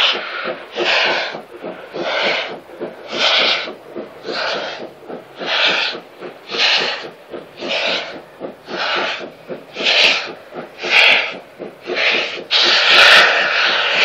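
Two-cylinder steam locomotive working a train slowly: loud, even exhaust chuffs, about one a second. About twelve seconds in, the beats give way to a continuous rushing hiss.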